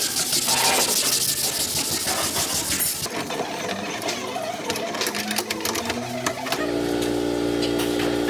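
Fast, rattling mechanical clatter with scraping, then a steady electric hum that sets in about two-thirds of the way through.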